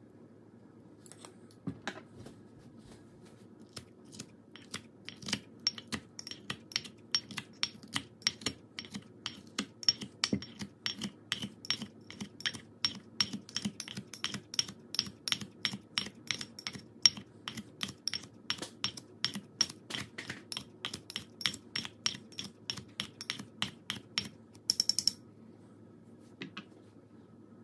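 Kitchen scissors snipping kimchi in a ceramic ramekin: a steady run of sharp blade clicks, about three a second, ending in a short quick rattle of clicks near the end.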